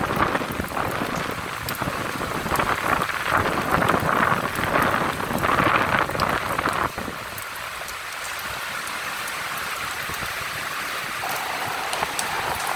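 Rain falling steadily, with many single drops ticking among the hiss. It comes in heavier surges for the first seven seconds or so, then drops suddenly to a lighter, quieter rain.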